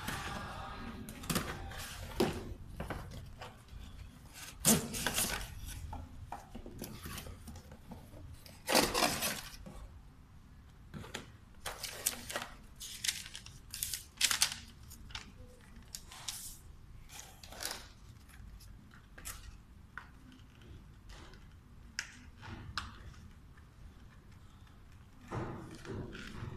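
Cardboard toy packaging handled during unboxing: a run of rustles, scrapes and knocks as the inner tray and cardboard inserts are pulled out and set down on a table. The loudest clatters come about five seconds and nine seconds in.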